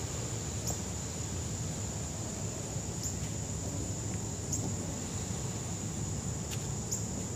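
Insects trilling steadily in one high continuous tone, with a few short high chirps and a low background rumble.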